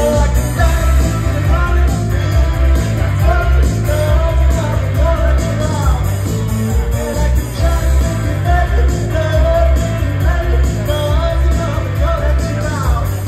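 A solo singer singing a pop-rock song into a handheld microphone over a strong, steady bass beat, heard through a venue's PA from the audience.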